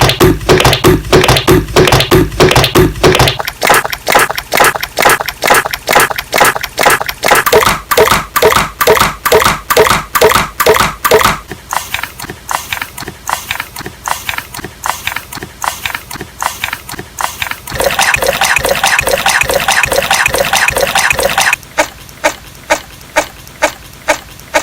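Slime being squished and poked by hand: a run of short wet squelching and popping strokes, two or three a second, with the sound changing abruptly several times as one clip gives way to the next.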